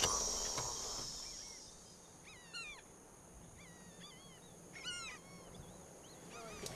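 A faint insect chorus in a high steady hiss fades out over the first two seconds. Then birds call: short calls that curve down in pitch, in clusters about two and a half seconds in and again around five seconds, with a few fainter calls between.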